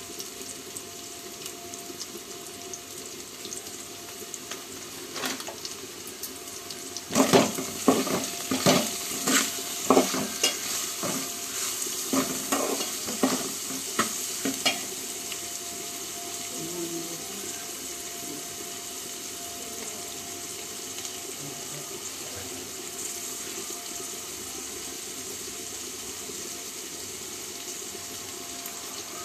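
Green chillies, bay leaves and whole spices frying in oil in a steel pot, with a steady sizzle. About a quarter of the way in, a steel spatula scrapes and clinks against the pot for several seconds as the mixture is stirred, then the sizzle goes on alone.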